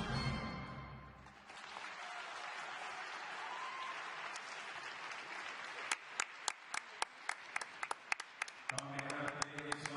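Skating program music ends about a second in, giving way to an arena crowd applauding. From about six seconds in, loud sharp claps close by come at roughly three to four a second over the applause, and a man's voice begins near the end.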